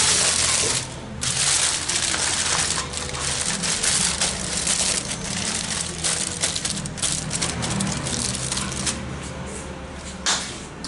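Aluminium foil crinkling and crumpling as it is folded and pressed by hand around a fish parcel. The crackle is densest in the first few seconds and thins out toward the end.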